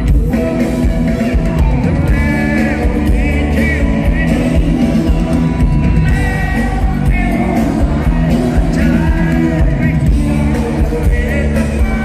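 Live Thai rock band playing through large PA speakers: electric guitars, bass and drums under a sung lead vocal, with the crowd shouting and singing along.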